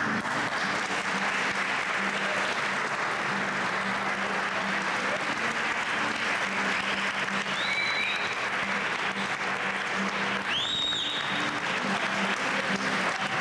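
Audience applauding steadily at the end of a piece, with two short high whistles about eight and eleven seconds in.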